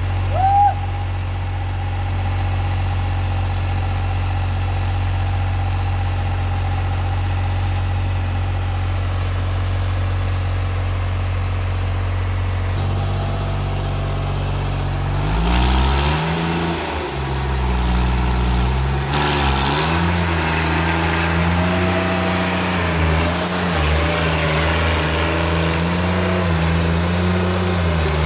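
Compact diesel tractor engine idling steadily, then from about halfway revving up and down as the tractor is driven on its rear wheels with the front reared up.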